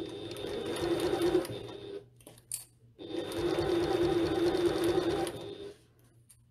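Janome HD9 sewing machine stitching piping onto a bag panel in two steady runs of about two to three seconds each, with a pause of about a second between them in which there is one short sound.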